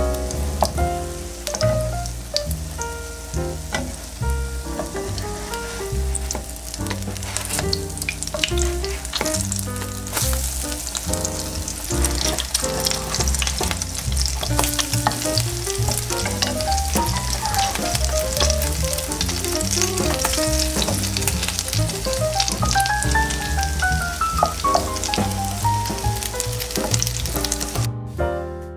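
Zucchini pancakes frying in hot oil in a frying pan, a steady sizzle full of small crackles, over background music. The sizzling stops shortly before the end while the music continues.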